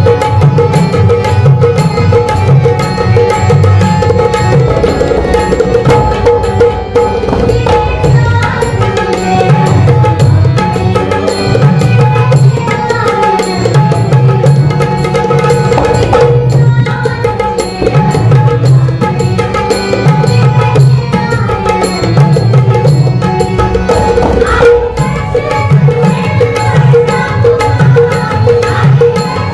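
Lavani music played live: fast hand-drumming on dholki barrel drums and a pair of small hand drums over a harmonium's steady held notes, with a woman's voice singing in stretches.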